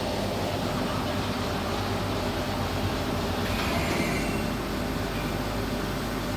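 Steady machine hum and noise of a TIG pipe welding machine running during welding, with a faint, brief high whine about three and a half seconds in.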